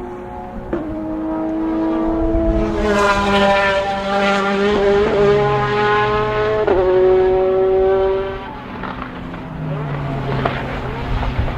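Sports-car race engines running hard past the end of turn 1, the engine note stepping in pitch at gear changes, loudest in the middle as a car goes by.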